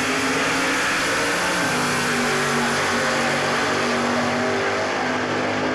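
Drag race cars' engines running loudly at the starting line, holding steady revs that step up or down a couple of times.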